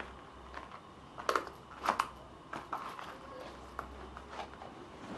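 Revolver handled against a leather belt holster and clothing: soft rustles and small clicks, with two louder scrapes about a second and two seconds in.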